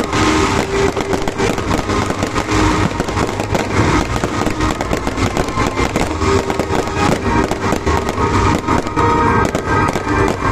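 Fireworks going off in rapid, unbroken succession: a dense barrage of bangs and crackling with no pauses.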